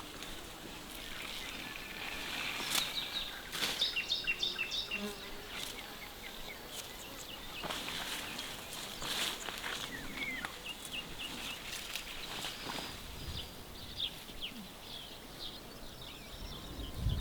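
Insects buzzing steadily, with many short high chirps and scattered light clicks and rustles.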